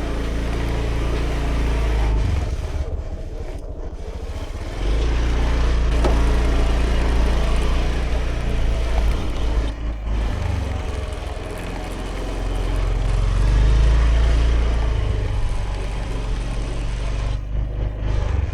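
2018 Honda Vision scooter's small single-cylinder engine running under way, with wind and road rush over it. The engine eases off briefly near the start, picks up about five seconds in, and swells again past the middle.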